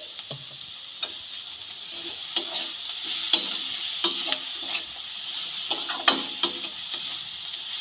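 Long metal spatula stirring and scraping shredded cabbage for momo filling in a metal kadai, clacking against the pan about once a second, over a steady sizzle from the hot pan.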